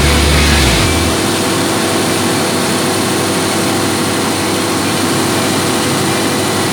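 Cummins 2000 kVA diesel generator set running at no load during warm-up: a loud, steady roar. The deep low rumble falls away about a second in.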